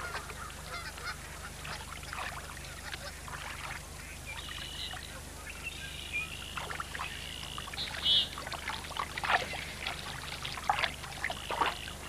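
Trumpeter swans giving several short honking calls, with light splashing of water as they move and feed.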